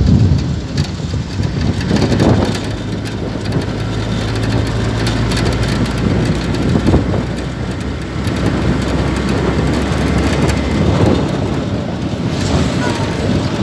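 Wind rushing over the microphone of a moving vehicle, with engine and road rumble underneath and a steady low engine hum through the middle.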